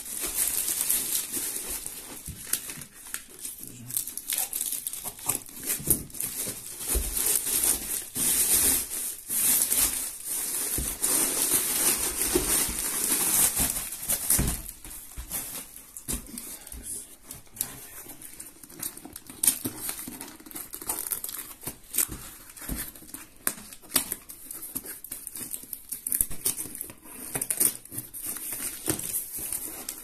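A plastic postal sack rustling and crinkling as it is handled and opened, then a cardboard box being handled, with scrapes and light knocks. The rustling is dense in the first half; in the second half there are fewer, separate clicks and knocks.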